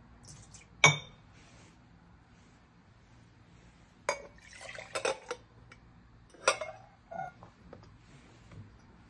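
Glassware and cups clinking as coffee servers are handled, with a sharp ringing clink about a second in. In the middle, brewed coffee is poured from a glass server into an enamel jug for about a second, with more clinks around it, to blend the two V60 brews.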